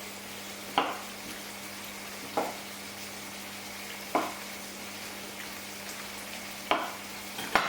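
Curry sauce sizzling steadily in a frying pan, with a spoon knocking or scraping against the pan five times as it is stirred.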